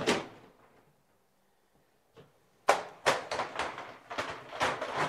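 PVC accordion shower door clicking shut, then after a pause of about two seconds a quick run of sharp clicks and clatters as its folding plastic panels are pushed open.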